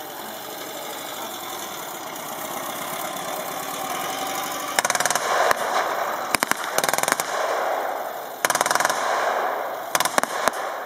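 Machine gun on a Marder III tank destroyer firing blanks in several short rapid bursts, starting about five seconds in, over the steady running of an engine.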